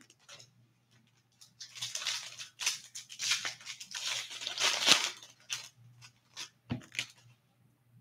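Foil trading-card pack wrapper crinkling and rustling in bursts as it is handled and the cards are pulled out. Near the end come a couple of short knocks as the card stack is squared on the table.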